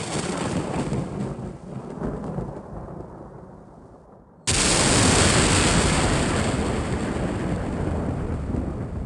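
Thunder sound effect: a rumble dying away over the first few seconds, then, about four and a half seconds in, a sudden loud crack of thunder that rolls on into a long rumble.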